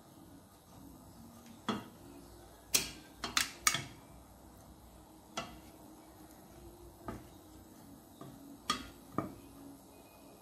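Wooden spatula knocking against the sides of a stainless steel saucepan while stirring broccoli florets: about nine separate knocks, the loudest in a quick cluster about three seconds in.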